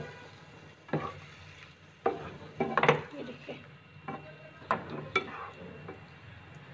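Black plastic spatula stirring chicken pieces in sauce in a non-stick frying pan: irregular scrapes and knocks against the pan, over a light sizzle of the chicken frying.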